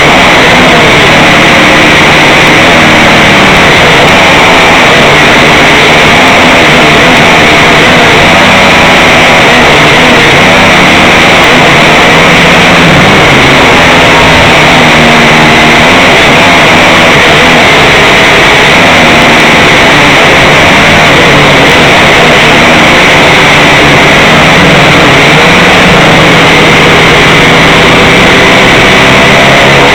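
A drone's electric motors and propellers buzzing loudly, picked up by the drone's own onboard camera. Several pitches waver up and down as the motors change speed.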